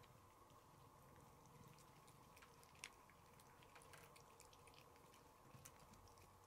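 Near silence with faint, scattered wet clicks of a tabby cat licking paste from a Churu lickable treat tube.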